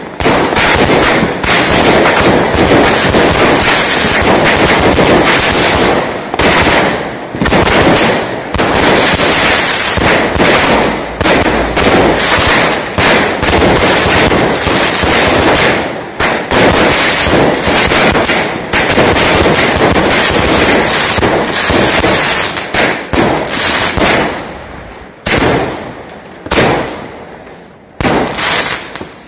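Consumer firework battery (multi-shot cake) firing a rapid, loud run of launches and overhead bursts, the bangs and crackling densely overlapping. It thins to a few separate bangs in the last few seconds.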